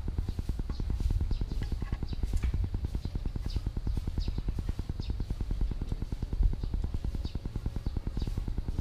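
A small engine running at idle with a fast, even beat. Light clicks and taps sound over it as the side mirror is threaded onto the scooter's handlebar mount.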